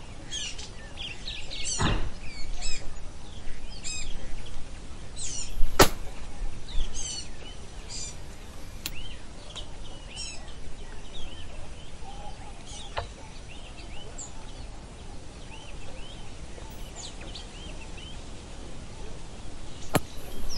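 Small birds chirping and calling over and over, with a few sharp clicks from the action of a Harrington & Richardson single-barrel, top-lever, break-open 12 gauge hammer shotgun being handled, the loudest about two seconds in and around six seconds, another near the end.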